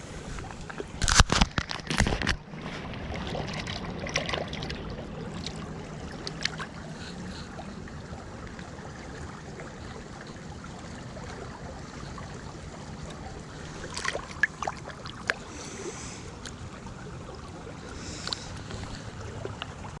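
Creek water running steadily, with a cluster of loud knocks and clatter about a second in and a few sharp clicks near the end.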